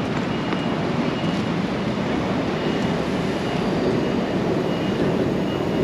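City street ambience: a steady rumble of traffic, with faint short high beeps recurring every second or so.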